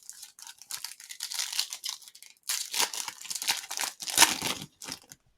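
Trading card pack wrapper being torn open and crinkled in the hands, a run of uneven rustling and crackling bursts with the loudest a little after four seconds in.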